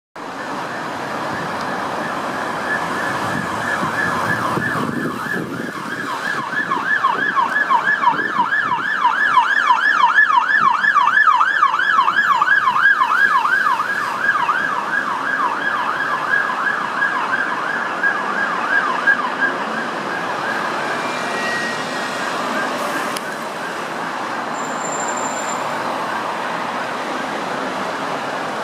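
Siren of an old-shape Mercedes Sprinter ambulance on an emergency call, yelping in fast rising-and-falling sweeps, about four a second. It grows louder toward the middle and fades out after about twenty seconds, leaving road traffic noise.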